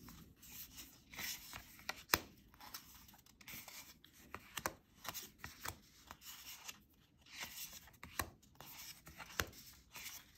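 Thick matte tarot cards being slid one by one off the top of a deck and set down on a wooden table: soft rubbing of card on card, with light taps at irregular intervals as cards land.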